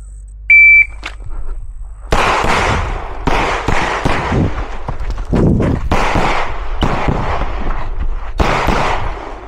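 Shot timer's start beep, one short high tone about half a second in, then from about two seconds in a rapid string of pistol shots at uneven intervals, with brief gaps between groups of shots.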